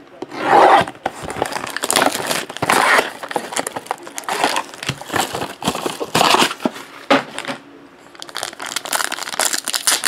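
Plastic shrink wrap and a foil card-pack wrapper crinkling and tearing as a trading card box is cut open with a utility knife and its pack unwrapped: irregular rustles, loudest about half a second in.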